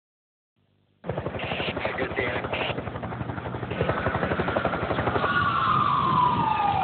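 A rapid, throbbing chop of a motor starts about a second in. In the second half a fire engine siren sounds over it, its wail gliding down in pitch near the end.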